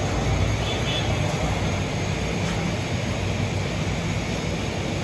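Restaurant room noise: a steady low hum under an even background din, with faint voices.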